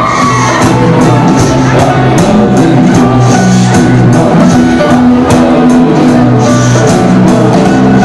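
Live rock band playing: a steady drum-kit beat with regular cymbal hits over bass and electric guitar.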